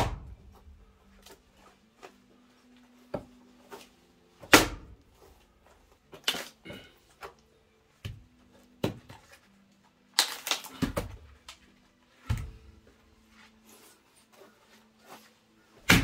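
Splitting axe striking and splitting larch rounds: about seven sharp wood-splitting blows spaced one to four seconds apart, the loudest about four and a half seconds in, with smaller knocks of wood between them.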